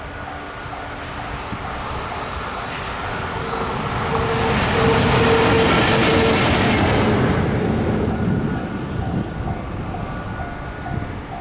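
Level-crossing warning bell ringing at about two strokes a second while a train hauled by an EF510 electric locomotive passes, its noise swelling to a peak about halfway through and fading near the end.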